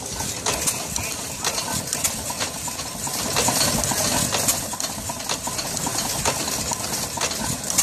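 Marvel Draw Cut power hacksaw cutting through a thick steel ring, the blade rasping back and forth with repeated clicks. The owner thinks the clicking may come from the drive spinning the wrong way.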